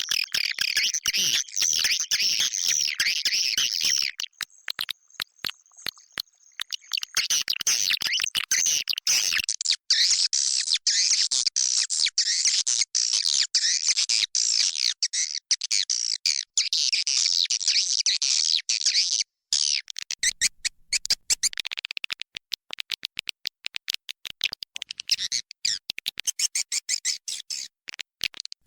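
Edible-nest swiftlet lure call: a recording of many swiftlets in a nesting house, used to draw swiftlets in. Dense, rapid, high chirping and twittering, thinning out for a few seconds about four seconds in and again about twenty seconds in.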